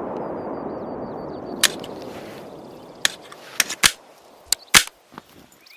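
The echo of a Glock .40 pistol's gunfire dies away over about two seconds. It is followed by a series of sharp, short clicks and knocks, about seven of them spread over the next few seconds, two of them loud.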